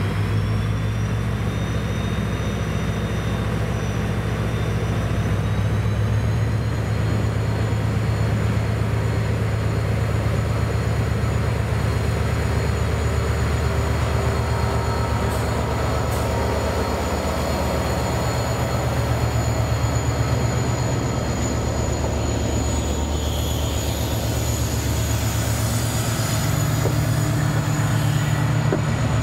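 Irish Rail 071 class diesel-electric locomotive, its EMD 12-cylinder two-stroke engine running under load as it hauls a train of Mark 3 coaches, a steady low drone with a high whine that rises a few seconds in. The engine note drops a little about two thirds of the way through, and near the end wheels squeal on the rails.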